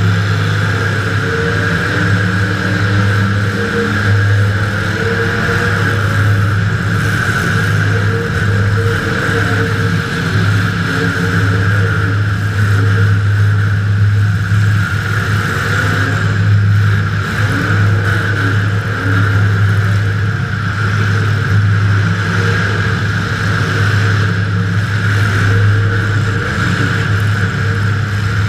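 Demolition derby car's engine running steadily at a loud drone, heard from inside the car.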